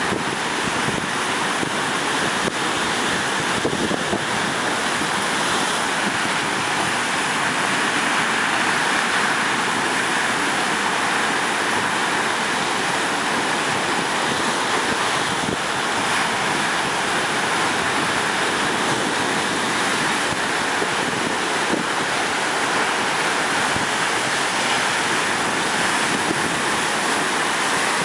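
Heavy ocean surf breaking and washing over black lava rocks: a steady, dense rush of white water that keeps an even loudness throughout.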